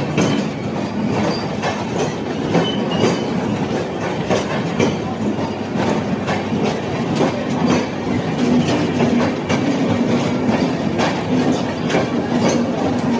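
Passenger train coaches running past on the track, a steady rumble with a fast, uneven clatter of wheels clicking over rail joints.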